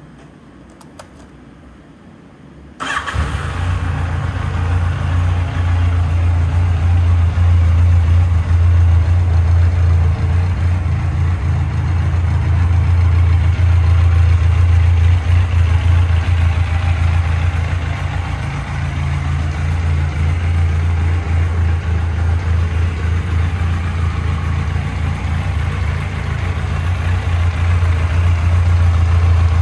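Yamaha XJR1200's air-cooled inline-four engine starting about three seconds in, then idling steadily.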